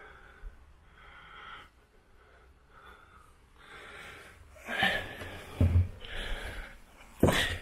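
A person breathing audibly in breaths a second or two apart, with a few sharp knocks and thumps in the second half. The loudest knock comes just before the end.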